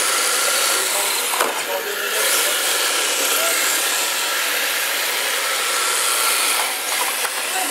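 Small radio-controlled drift cars running on a smooth terrazzo floor: a steady hiss of tyres sliding over the floor with a thin whine from the electric motors, and one sharp click about a second and a half in.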